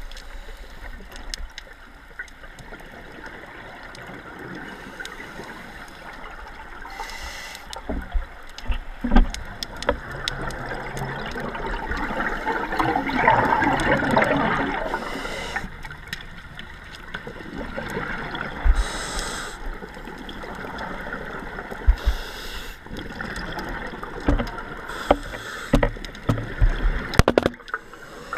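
Scuba diver breathing through a regulator underwater: a short hiss of inhaled air every few seconds, alternating with the bubbling rush of exhaled air, plus occasional sharp clicks and knocks.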